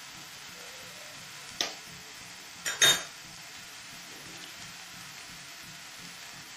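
A raw egg's shell being cracked with sharp taps over a stainless-steel dish: one tap, then two quick, louder taps about a second later.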